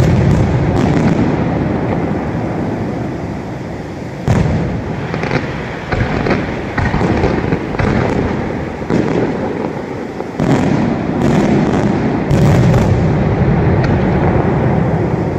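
Aerial firework shells bursting in quick succession during a professional fireworks display: sharp bangs about every second over a continuous rolling rumble of echoing detonations.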